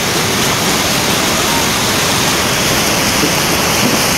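Fast brown floodwater surging down a street as a torrent, a loud, steady rush of churning water.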